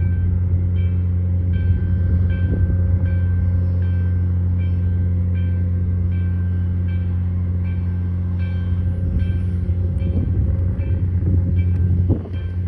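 Steady low rumble of a passenger railcar rolling along the track, heard from inside the car, with a faint high tick repeating about twice a second. Near the end the rumble dips briefly and there is a short louder scrape.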